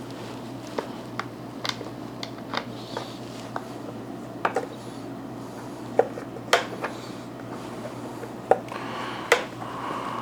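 Scissor blade tip clicking and scraping in the head of a small screw, used as a makeshift screwdriver to fasten a carpet cleaner's handle: a string of irregular sharp clicks, loudest in the second half, over a faint steady low hum.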